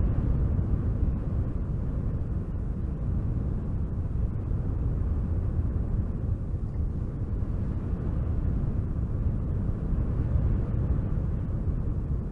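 Wind blowing hard and steadily, a low rushing noise that swells and eases a little without pausing.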